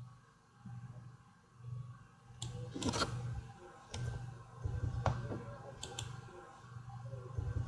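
Computer mouse clicking a handful of times at irregular intervals, with two clicks in quick succession about six seconds in, over a faint low hum.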